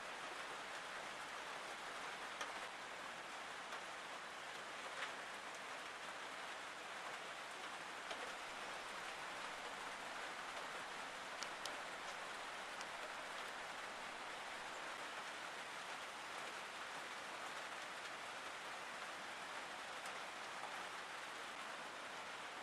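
Steady rainfall, an even patter with a few louder single drops ticking now and then.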